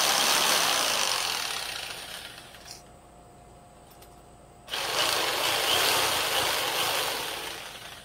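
Small jigsaw cutting through pine board in two runs: the first dies away about three seconds in, and the second starts suddenly near the middle and dies away near the end.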